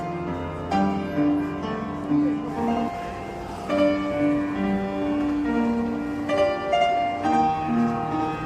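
Background music: a gentle instrumental melody with piano and strings.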